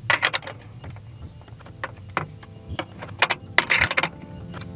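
Irregular metallic clicks and clacks of a wrench on the bolt of a wink mirror's mounting bracket as it is tightened.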